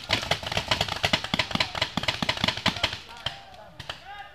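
Paintball markers firing in a fast string of sharp pops, several a second, that stops about three seconds in. Faint shouting follows near the end.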